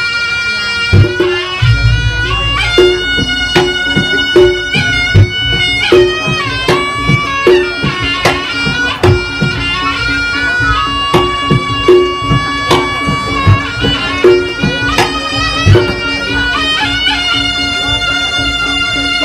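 Reog Ponorogo gamelan playing: a shrill double-reed slompret holds a melody in long notes over steady drum strokes and a repeated low pitched pulse.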